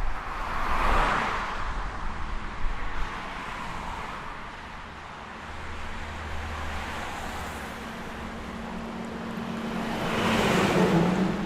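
Road traffic: one car passes by about a second in and another near the end, each a swell of tyre and engine noise. Between them a steady low engine hum runs under the traffic.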